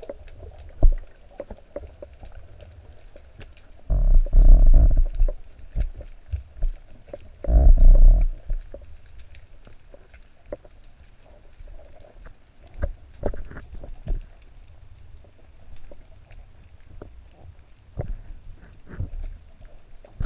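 Muffled water movement and small knocks against an underwater camera housing, with two louder rushing bursts about four and seven and a half seconds in.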